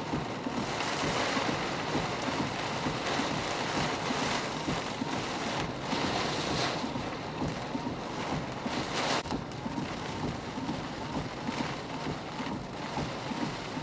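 Strong hurricane wind gusting and buffeting the microphone: a rushing noise that swells and eases every second or so.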